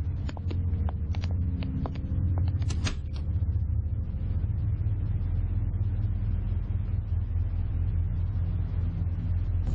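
Low, steady rumbling drone of a dramatic score bed. In the first three seconds a few sharp clicks sound over it, about two a second, like footsteps on a hard floor.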